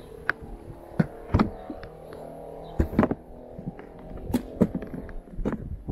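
Bicycle rattling and knocking over uneven ground: a sharp click or clack every second or so, over a steady low hum made of several tones that fades out near the end.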